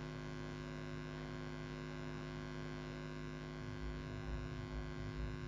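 Steady electrical hum with several steady tones under a faint hiss. Uneven low rumbling joins it from a little under four seconds in.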